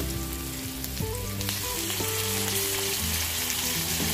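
Marinated pork ribs sizzling in hot oil as pieces are added one by one to a wok of sautéed onion and garlic, with a few sharp crackles and spits as they land.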